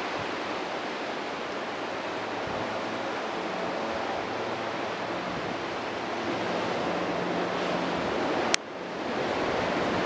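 Strong wind blowing steadily, an even rushing noise with no letup. A single sharp click near the end.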